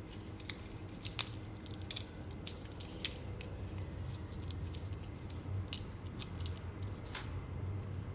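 Fresh pandan and red bamboo leaves being bent and knotted by hand on a plastic cutting board: scattered sharp clicks and crackles of the leaves, the loudest in the first three seconds, over a low steady hum.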